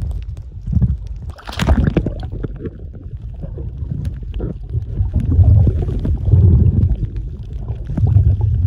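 Muffled underwater sound picked up by a camera held just under the sea surface while snorkeling: a low rumble of moving water that swells and fades, with bubbling and small clicks. About a second and a half in there is a brief louder rush of water.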